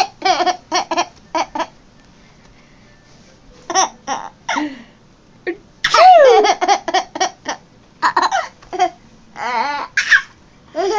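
Baby laughing in fits of high-pitched giggles, in short bursts, with the longest and loudest run starting about six seconds in.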